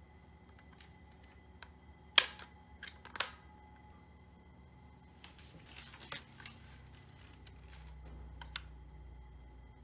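Sharp plastic clicks and knocks from handling a toy gun and a phone stand on a wooden table: a loud click about two seconds in, two more about a second later, then a few lighter taps.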